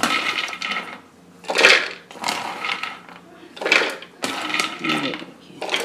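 Handfuls of roasted walnuts and almonds dropped into a plastic food-chopper bowl, clattering in several irregular bursts.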